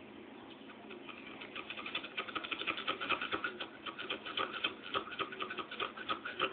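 Rapid, irregular scratching clicks that build up about a second in and keep going.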